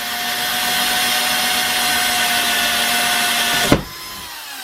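Small electric drill running steadily at full speed with a constant whine, drilling a hole through the model railway baseboard. It is switched off with a click about three and a half seconds in, and the motor winds down with a falling whine.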